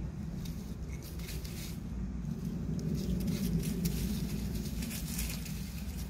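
A dog and a raccoon scuffling together on dry leaves and sand: irregular rustling and crackling of leaves as they roll and grapple, over a steady low rumble.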